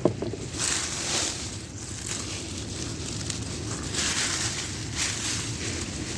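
Dry leaf mulch rustling and crunching in short bursts as potatoes are pulled out of it by hand, over a steady low rumble.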